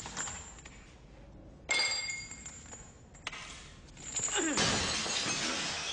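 Crashing, shattering sound effects: a sudden crash with bright ringing tones about two seconds in, another hit a second and a half later, then a falling sweep into a long crash of breaking glass.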